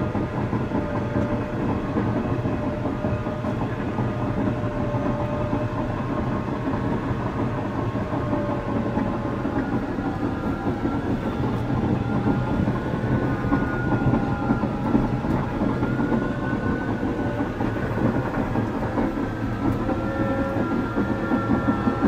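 Caterpillar D6 bulldozer running and travelling over landfill trash: a steady engine drone with the steel tracks clattering, and thin wavering whines over it.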